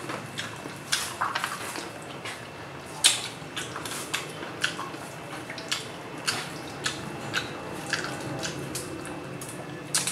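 Wet eating sounds from people eating crab with their hands: irregular lip smacks, sucking and short clicks.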